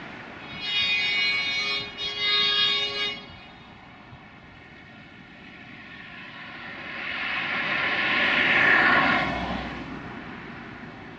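Diesel-hydraulic locomotive's horn sounding two blasts, about a second long each, starting about a second in. Later a rumbling engine noise swells and fades again near the end.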